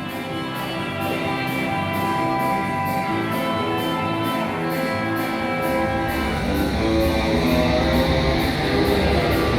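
Guitar playing, plucked and strummed notes ringing on. From about six seconds in, a low rumble and hiss build underneath: a London Underground train coming in.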